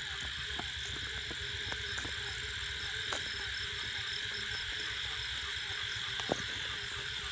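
Steady chirring of crickets and other night insects, with a few scattered crunches of footsteps on a gravel road.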